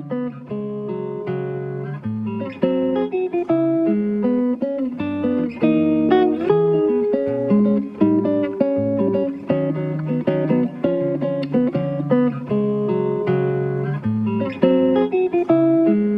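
Background music: a guitar piece of plucked notes and chords, playing steadily.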